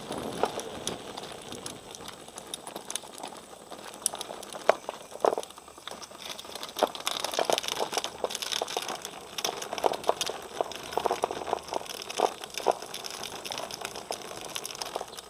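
Hard rear wheels of a drift trike rolling and skidding over gritty asphalt: an uneven crackling scrape studded with many small clicks and crunches.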